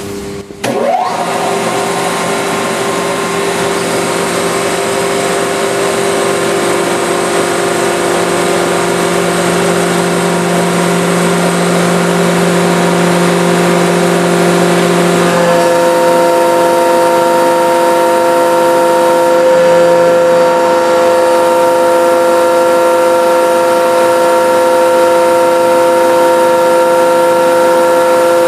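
A 500-ton hydraulic press running with a loud, steady multi-tone whine as its ram squashes a fitness ball. About halfway through, the whine steps up to a higher set of tones.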